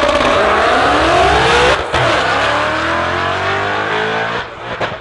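Six-speed Mustang drag car accelerating hard down the strip. The engine's pitch climbs, breaks briefly for an upshift a little under two seconds in, then climbs again before dropping away about four and a half seconds in, with a few sharp pops near the end.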